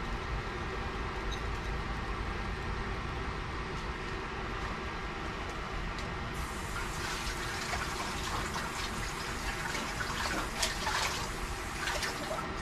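Steady low background hum; about six seconds in a tap is turned on and water runs into a sink, with a few light clatters of things being handled under it.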